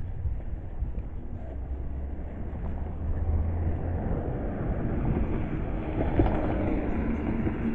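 Outdoor traffic noise: a vehicle passing, swelling about halfway through and loudest near the end, over a steady low wind rumble on the microphone.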